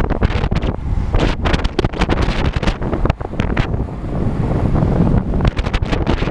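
Wind buffeting the microphone of a camera riding on a racing bicycle at speed: loud, uneven gusts of rushing noise.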